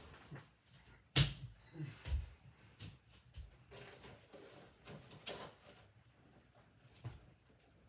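Scattered household knocks and thumps: one loud knock about a second in, then several fainter knocks and bumps spread through the rest.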